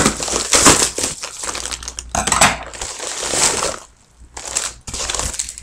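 Packaging crinkling and rustling loudly as a mailed package is handled and opened by hand, dying down about four seconds in before a few more rustles.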